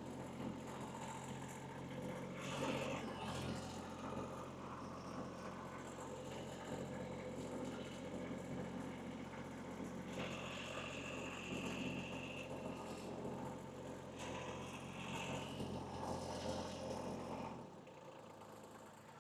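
Kubota B2301 compact tractor's three-cylinder diesel engine running at low speed while it moves and sets down a loaded IBC tote. A brief high whine comes about ten seconds in, and the engine shuts off near the end.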